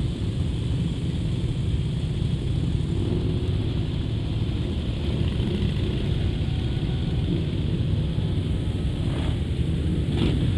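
A column of Harley-Davidson V-twin motorcycles riding slowly past, their engines making a dense, steady low rumble.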